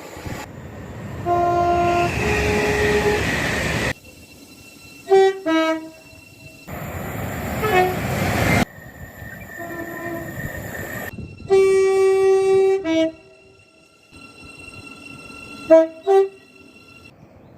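A run of short recordings of British trains sounding their horns, each a blast or a pair of toots that steps between two pitches. The longest, loudest note comes about two-thirds of the way through. Between horns there is the rumble of trains passing, and the recordings cut abruptly from one to the next.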